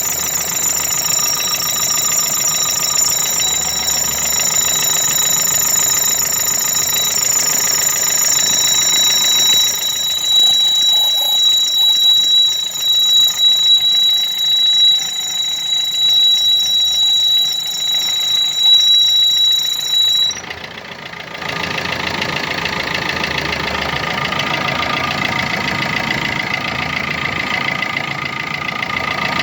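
Opel Astra J A13TDE 1.3 diesel running with a steady high-pitched whistle from under the bonnet. This whistle comes with the engine cold and goes away once it warms. About two-thirds of the way through the whistle cuts off suddenly and the engine runs on without it.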